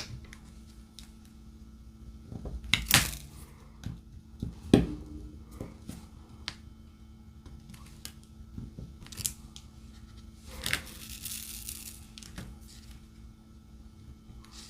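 Diamond painting handling sounds: scattered light taps and clicks of the drill pen and tray, with sharper clicks about 3 and 5 seconds in. A short rustling crinkle a little past the middle.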